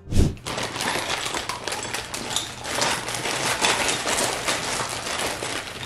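Plastic packaging bags crinkling and kit parts clicking as they are handled, a dense crackle with a knock at the very start.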